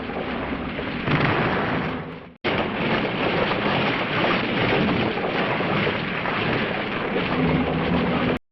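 Two explosion sound effects from Showa-era Japanese monster films played back to back. The first rumble swells about a second in and fades out. After a short gap the second starts suddenly, keeps rumbling for about six seconds and cuts off abruptly near the end.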